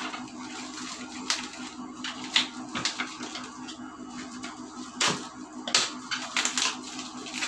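Plastic packaging crinkling and scissors snipping as a plastic bottle is unwrapped, in irregular sharp clicks and crackles, busiest about five to six and a half seconds in, over a faint steady low hum.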